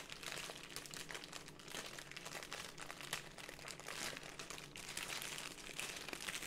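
Clear plastic packaging crinkling and crackling irregularly as it is handled.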